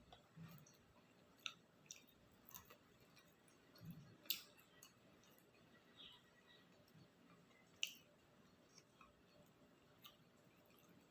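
Faint close-miked eating sounds of someone chewing octopus-filled takoyaki: soft, irregular wet clicks and smacks, with a sharper click about four seconds in and another near eight seconds.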